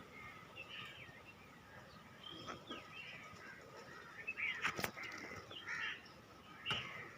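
Birds chirping with short, repeated calls in the background, faint. A few sharp knocks or clicks cut through, the loudest about five seconds in and another near the end.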